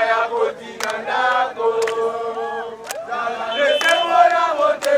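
A crowd of voices singing and chanting together, with a held note partway through and several sharp clicks cutting through.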